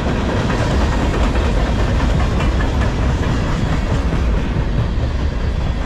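Freight cars of a CSX manifest train rolling past close by: a loud, steady rumble of steel wheels on the rails with some clacking.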